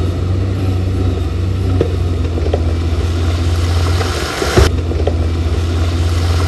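Heavy construction machine's diesel engine running steadily with a deep hum, broken by a few short metallic knocks.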